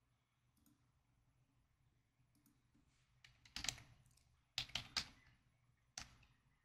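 Computer keyboard keys being typed in short bursts: a few faint clicks, then three loud groups of keystrokes in the second half, the last a single key near the end.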